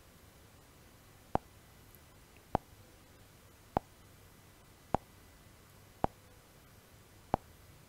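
Computer mouse button clicked six times, one sharp click roughly every second, selecting words one after another.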